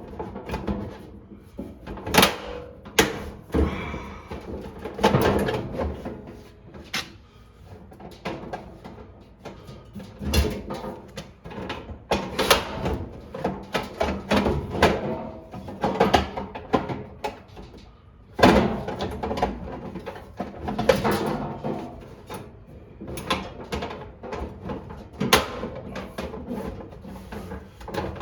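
Irregular knocks, clicks and short rattles of hard parts and tools being handled, coming in uneven clusters.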